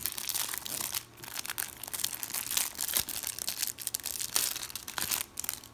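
Thin clear plastic wrapper on a pack of trading-card stickers crinkling and tearing as fingers peel it off, a dense irregular crackle with a brief lull about a second in.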